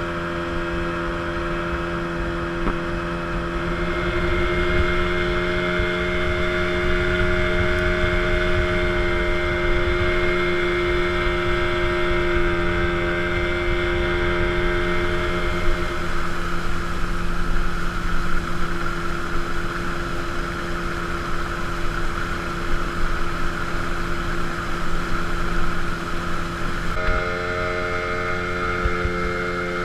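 Motorboat engine running steadily underway, with wind and water noise. The engine note shifts about halfway through and changes again abruptly near the end.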